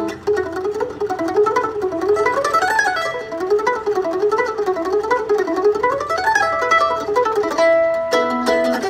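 Solo F-style mandolin playing a fast fiddle tune: quick runs of single picked notes climbing and falling over and over, settling into longer held notes near the end.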